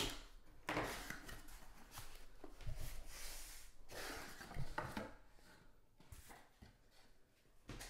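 Rolls of half-dollar coins being handled: paper rustling with soft knocks and scrapes, and a faint clink of coins now and then.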